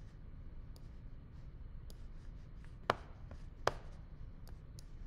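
Two sharp clicks about three-quarters of a second apart, with fainter ticks around them, over a low steady hum: the small sounds of someone working a computer at a desk.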